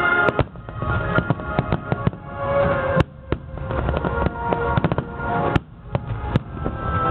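Fireworks shells bursting in a quick, irregular string of sharp bangs and crackles, with music playing underneath throughout.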